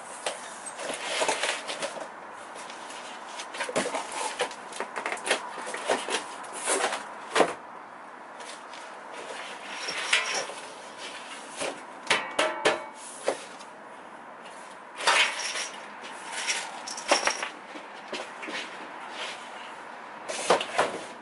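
Cardboard packaging rustling and scraping as a Masterforce 26x19 perforated steel tabletop is lifted out of its box, with repeated light metallic knocks and clatters of the plate against the box and the bench beneath.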